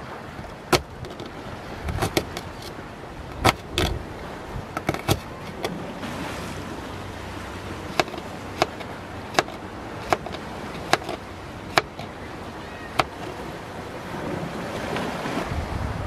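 Knife chopping shallots on a thin plastic cutting board: a dozen or so sharp taps, some in quick pairs, then about one a second, over a steady wash of waves and wind.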